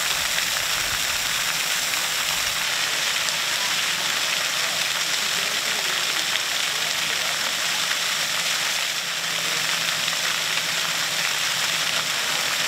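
Water jets of a splash-pad fountain spraying and splashing down onto the pavement in a steady hiss.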